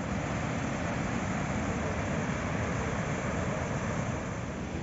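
Rushing water of the Suna river at Kivach waterfall: a steady, even roar that does not change.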